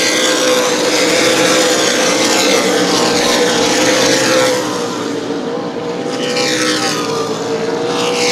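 Super late model stock cars racing at speed, their V8 engines running hard in a steady pack note. The pitch sweeps down as cars pass near the start and again about six seconds in.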